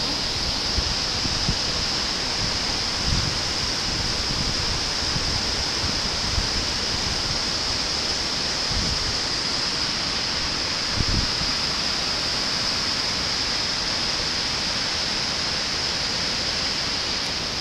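Steady rush of a swollen, fast-flowing river pouring over rocks and falls, with a few brief low thumps on the microphone.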